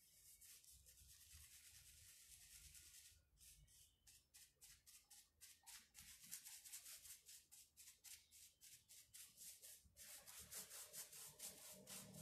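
Small paintbrush scrubbing wet paint onto a rough wooden cable-spool top: a continuous brushing for about three seconds, then short, quick strokes, several a second. Faint background music comes in near the end.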